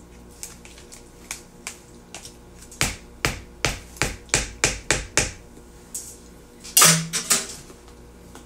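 A metal spoon knocking against a dish: about seven sharp taps in quick succession, then a louder clatter and two more knocks near the end.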